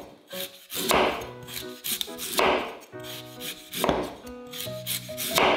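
A santoku knife slicing a raw sweet potato into thin rounds on a wooden cutting board: four slow cuts about a second and a half apart, each a short rushing scrape. Soft background music runs underneath.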